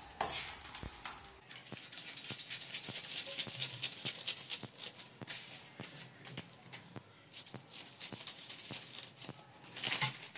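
Large steel tailoring scissors snipping through newspaper, a run of crisp snips with paper rustling as the pattern piece is cut out. Near the end a louder clack, as the scissors are set down on the floor.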